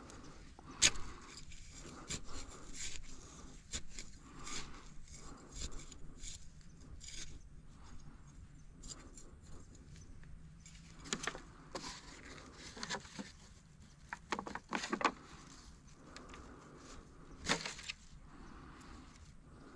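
Irregular rustling and scraping with scattered sharp, light knocks: the handling sounds of planting work.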